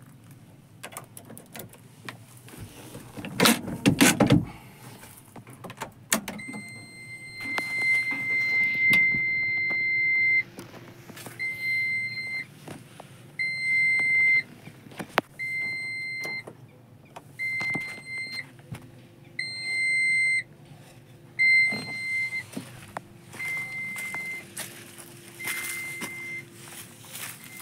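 Electronic buzzer sounding one high steady tone, first held for about four seconds, then repeating as short beeps roughly once a second. About four seconds in there is a brief loud rustling clatter.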